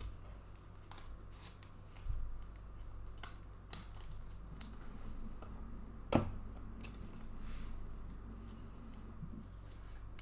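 Trading cards and plastic card sleeves being handled: soft scattered rustles and small clicks, with one sharper click about six seconds in, over a low steady hum.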